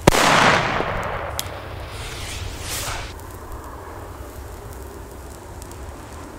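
A DumBum P1 friction-head firecracker (0.5 g) going off once with a sharp bang right at the start, its echo dying away over about a second.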